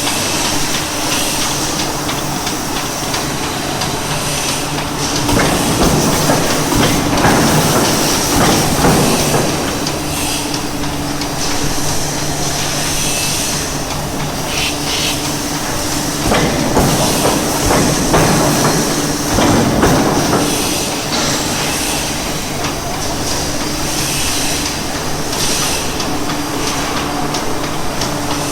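1000-ton forging press running: a steady machine hum with hissing air. It grows louder twice for several seconds at a time.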